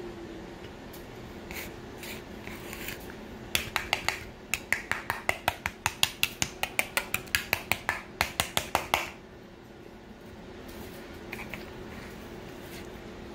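Eating noises: a fast, even run of sharp clicks, about four or five a second, starting about three and a half seconds in and stopping about five seconds later.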